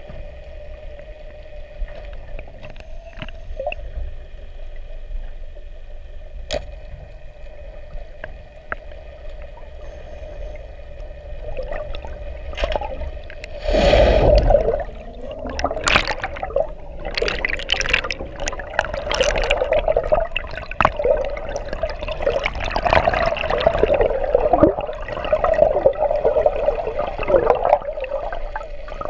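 Underwater sound heard through a camera: a steady hum with scattered clicks, then a loud gurgling rush about halfway through, followed by crackling, rushing water noise.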